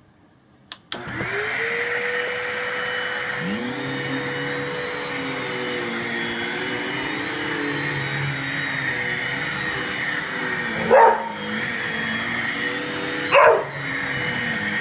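An upright vacuum cleaner is switched on with a click about a second in, and its motor spins up to a steady whine while it runs over carpet. A dog gives two loud barks a couple of seconds apart, late on.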